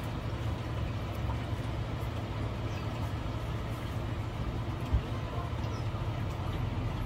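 Steady low background hum with a single dull thump about five seconds in.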